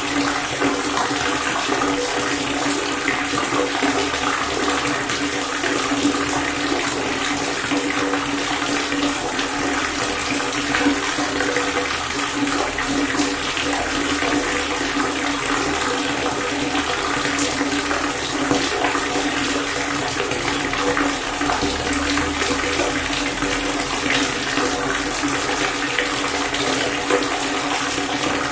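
Water pouring in a steady, unbroken stream, with a faint steady ringing tone under the splash.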